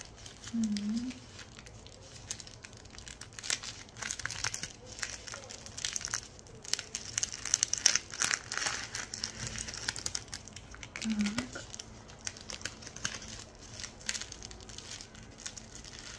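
Thin plastic film wrapper of a packaged onigiri crinkling and rustling in irregular bursts as it is pulled apart and peeled off the nori-wrapped rice triangle.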